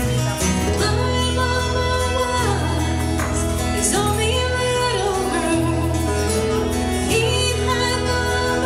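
A live country band playing: a woman singing lead over a bowed fiddle, electric bass and acoustic guitar.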